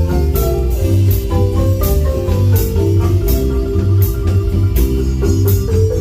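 Marimba band playing: quick struck and rolled marimba notes over a steady low bass and drum beat.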